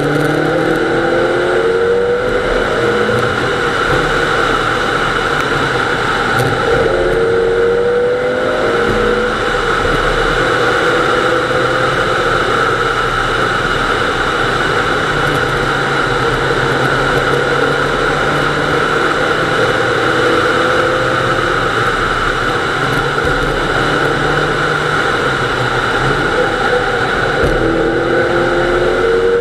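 Nissan Almera GTI rally car's 2.0-litre four-cylinder engine heard from inside the car, driven hard, its revs climbing in several pulls with drops between them at the gear changes, over steady road and wind noise.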